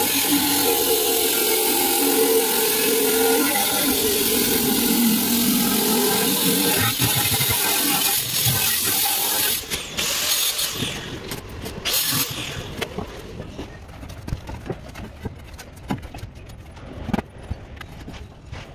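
A steady, loud mechanical noise with a hiss runs and then dies away about ten seconds in, followed by scattered light clicks and knocks.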